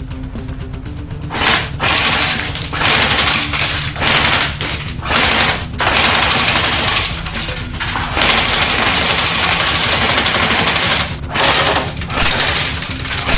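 Airsoft Steyr AUG rifle firing on full auto in repeated bursts, starting about a second and a half in, the longest running about three seconds, over background music.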